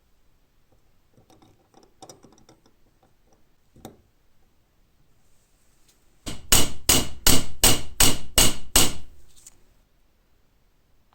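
A hammer striking a steel padlock about nine times in quick succession, roughly three blows a second, each with a short metallic ring: rivets being peened to hold the restored lock together. Light clicks of metal parts being handled come before it.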